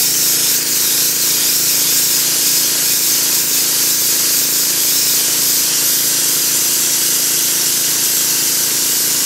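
Pressure washer spraying a jet of water onto the ground: a steady, loud hiss of the spray over the even hum of the washer's motor and pump.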